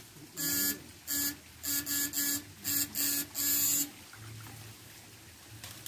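Electric fishing rig buzzing in a run of short, sharp on-off bursts, about eight in three and a half seconds, as the current is switched into the water.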